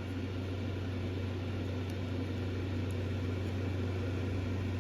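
Steady low hum with an even hiss, unchanging throughout: a background machine or appliance noise.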